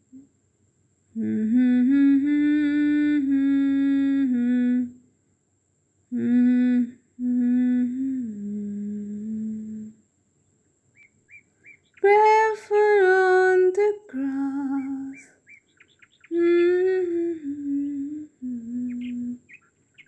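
A voice humming a slow melody in four held phrases, with short pauses between them.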